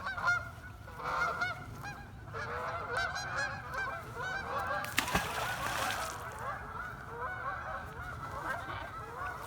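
A flock of geese honking, many overlapping short calls throughout. About five seconds in, a sharp crack followed by a second of hiss cuts through the calls.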